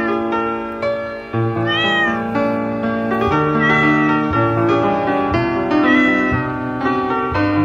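A cat meowing three times, about two seconds apart, each call rising and falling in pitch, over background music.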